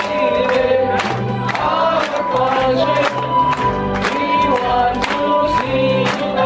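A group of waiters singing a farewell song over music, with the diners clapping along in time, about two claps a second.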